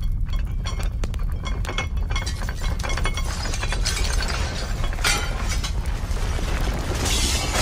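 Sound effect of a house shaking: a deep continuous rumble with glass clinking, rattling and shattering, and louder crashes about five seconds in and again near the end.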